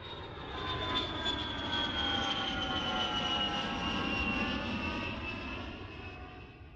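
Jet airliner flyover sound effect: engine rush with a high whine that falls slowly in pitch. It cuts in and out abruptly.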